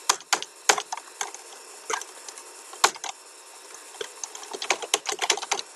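Keystrokes on a computer keyboard: scattered single key clicks, then a quicker run of keys near the end.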